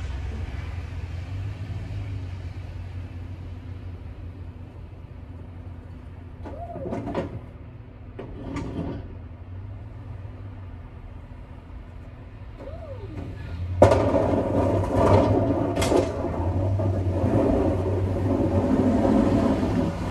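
Pickup truck with a front snowplow blade, its engine running, softer as it pulls away and louder as it comes back. About 14 seconds in a loud scraping rumble starts suddenly and continues: the plow blade pushing snow along the pavement.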